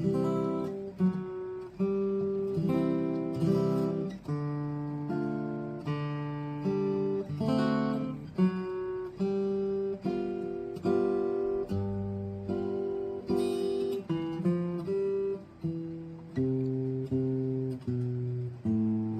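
Acoustic guitar strumming and picking the chords of a slow folk song, one chord after another at an even pace.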